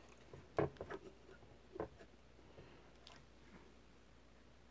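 Faint handling noise: a few light clicks and taps as a red power wire is positioned against a flight-controller pad on a carbon-fibre drone frame.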